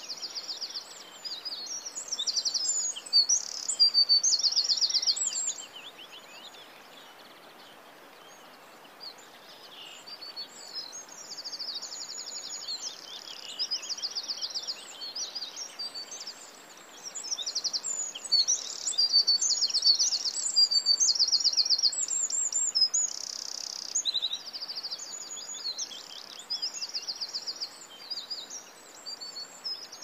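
Small songbirds chirping and singing, high-pitched, with many rapid trills and whistled slurs overlapping, and a lull of a few seconds early on.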